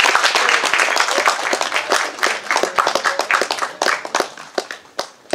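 Audience applauding, a dense patter of hand claps that thins out and dies away about four seconds in.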